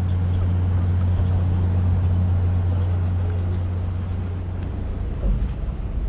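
An idling engine: a steady low drone that eases off slightly in the last couple of seconds, over a faint outdoor hiss.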